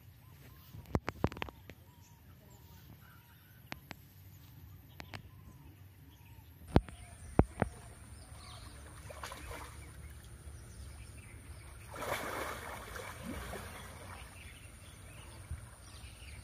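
Asian elephant wading in a muddy pond, the water sloshing and splashing around its legs, with a louder stretch of splashing about twelve seconds in. A few sharp clicks, the loudest around seven seconds in, and faint bird chirps.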